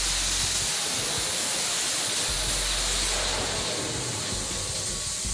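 Twin jet engines of an F/A-18 Super Hornet running at high launch power on a carrier flight deck, heard from a distance as a steady high hiss.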